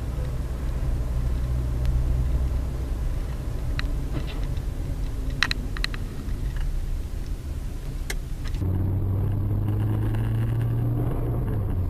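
Steady car engine and road rumble heard through a dash camera. A few sharp clicks or knocks come about four, five and a half and eight seconds in. Shortly after the last of them the sound changes abruptly to a different steady low hum.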